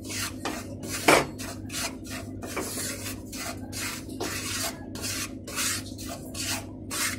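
Wooden spatula scraping and stirring dry semolina around a nonstick pan: a gritty scrape with each stroke, about three strokes a second, with one sharper, louder stroke about a second in. The semolina is being dry-roasted over a low flame.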